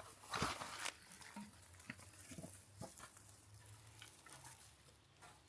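Footsteps and rustling on the forest floor, with one louder rustle about half a second in, then scattered faint ticks and rustles.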